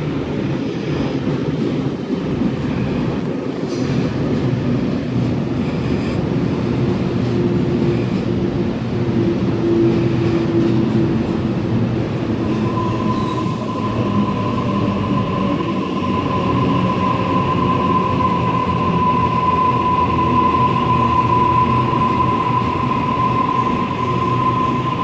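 Sydney Trains double-deck electric train pulling into an underground platform, with a steady low rumble of wheels and motors. About halfway through a steady high-pitched squeal from the running gear comes in and holds to the end.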